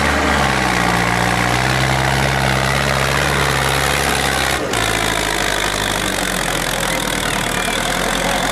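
Diesel farm tractor engine running steadily as the tractor pushes through deep mud. The engine note changes abruptly a little past halfway.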